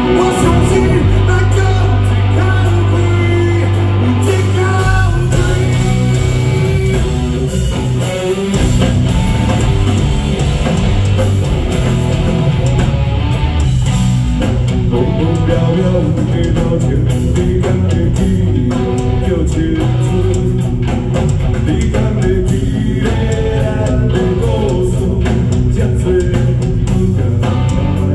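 Rock song played by a band, with guitars, bass guitar and drum kit under a singing voice.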